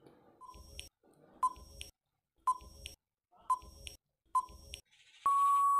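Countdown-timer sound effect: five short electronic beeps, each with a click, about a second apart, then a longer, louder steady beep near the end that marks the end of the countdown.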